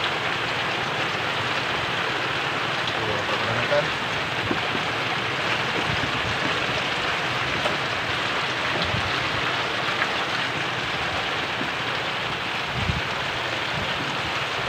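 Steady hiss of rain falling during a typhoon, even throughout, with a few faint small knocks.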